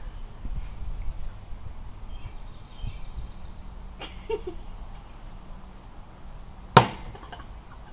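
A bird chirps in a short run a few seconds in, over a low outdoor rumble. Near the end, a small glass is set down on a wooden chest with a single sharp knock, the loudest sound.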